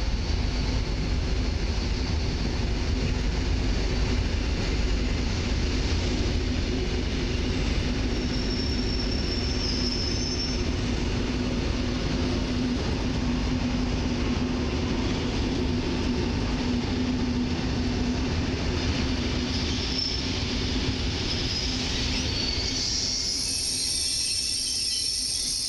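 Koleje Mazowieckie EN57AL electric multiple unit rolling slowly into the platform: a steady rumble of wheels and running gear with a low hum. High squeals come in about a third of the way through and again in the last few seconds.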